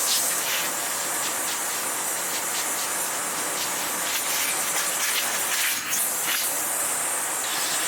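Sebo Felix vacuum cleaner running, its suction hissing steadily through the hose as it pulls hair off an upholstery brush strip, with frequent small clicks and rattles of debris going up the hose.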